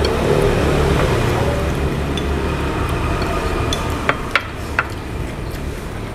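Chopsticks and small bowls clicking three times a little past the middle, over a steady low rumble.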